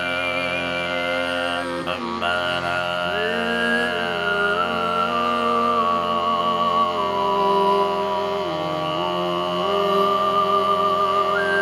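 Overtone singing over male voices in Sardinian cantu a tenore style: the voices hold a steady, harmonic-rich drone while a thin, whistle-like overtone melody moves slowly above it. There is a brief break in the drone about two seconds in.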